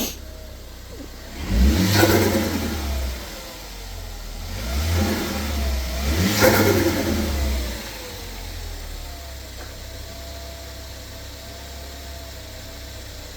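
Ford Focus ST's turbocharged engine idling and revved twice in quick blips, the revs rising and falling each time, with a brief turbo flutter as the throttle is let off; it then settles back to a steady idle.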